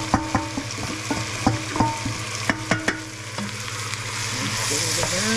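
A metal spoon knocking and scraping flour out of a stainless steel bowl, each knock ringing briefly, over sliced onions sizzling in a hot pot. The knocks stop about three seconds in, and the sizzling grows louder near the end as the onions are stirred.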